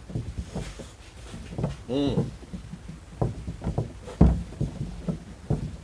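Irregular knocks and clicks of parts being handled while a fuel petcock fitting is worked into a diesel heater's fuel tank, with one louder thump about four seconds in. A short vocal sound about two seconds in.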